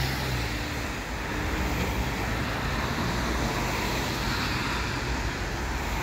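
Road traffic: cars passing on a multi-lane city street, a steady wash of tyre and engine noise.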